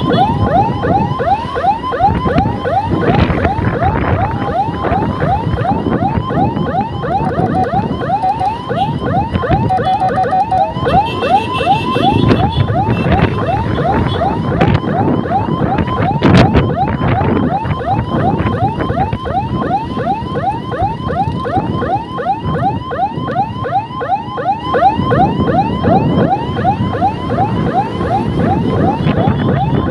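Electronic siren on an escort motor scooter sounding a fast yelp, about three rising sweeps a second, over wind and traffic noise; the pattern changes briefly partway through.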